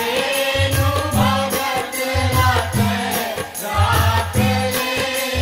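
Mata jas devotional song music: a chorus of voices over drums keeping a steady beat, with melodic accompaniment.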